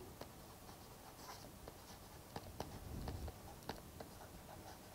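Faint irregular ticks and light scratches of a stylus writing on a tablet screen.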